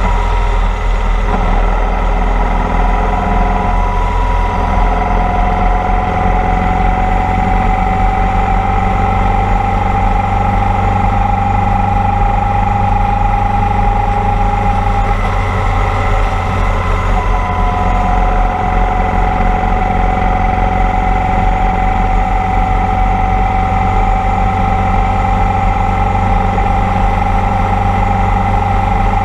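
Motorcycle engine running steadily at cruising speed, with a heavy low rumble of wind noise on the microphone. The engine note drops a step a little past halfway, then slowly climbs again.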